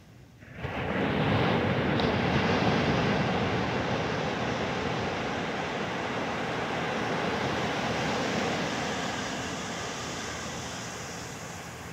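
Ocean surf on a beach: a steady rush of breaking waves that swells up suddenly about half a second in and slowly fades toward the end.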